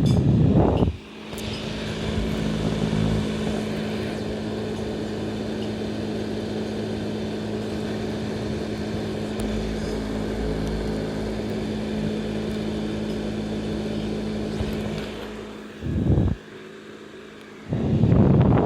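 Small electric fan motor of a hair dryer running with a steady hum. Loud rushes of blown air on the microphone drown it out at the start, briefly about 16 seconds in, and again near the end.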